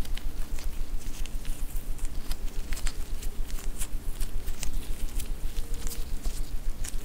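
Gloved hands folding and pinching soft yeast dough on a wooden board. Soft sticky taps, tiny crackles and glove rustle come in quick, irregular succession over a steady low hum.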